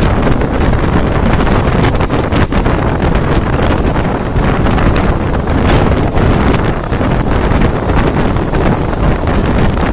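Wind buffeting the microphone, which is held out of the open door of a moving passenger train, over the train's steady running noise on the rails, with scattered brief knocks.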